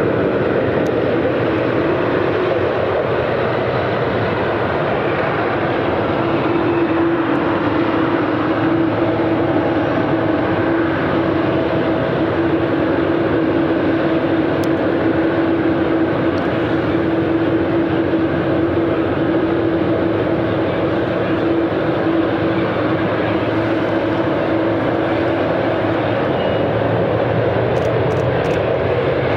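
Boeing 777-300ER's GE90 turbofan engines running steadily at low power on the runway: a loud, even jet rush with a steady hum held through it that fades out near the end.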